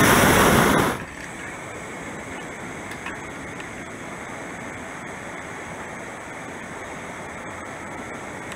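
Hot air balloon's propane burner firing, a loud rushing blast that cuts off suddenly about a second in. After it comes a much quieter steady hiss of air.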